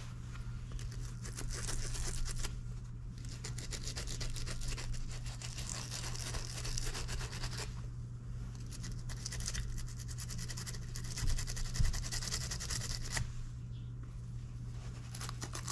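A small stiff-bristled brush scrubbing a motorcycle fuel petcock part clean, in quick rapid strokes. The scrubbing comes in four bouts with short pauses between them, over a steady low hum.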